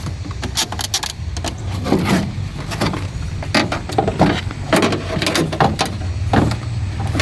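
Irregular metal clicks and knocks as a replacement door latch is slid and worked into the rear door cavity of a Ram pickup, over a steady low hum.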